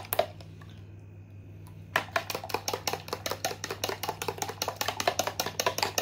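Eggs being beaten with a fork in a plastic mixing bowl: quick, even clicking strokes at about seven a second. The beating pauses just after the start and picks up again about two seconds in.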